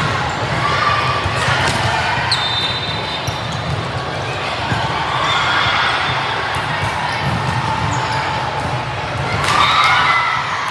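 Indoor volleyball game sounds: a few sharp ball hits and short high sneaker squeaks on the gym floor over spectators' chatter, echoing in the hall. The crowd noise swells near the end.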